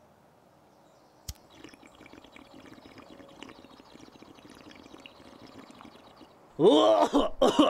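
Water bong bubbling for about five seconds as a hit is drawn through it, after a single sharp click. A loud voice-like outburst takes over near the end.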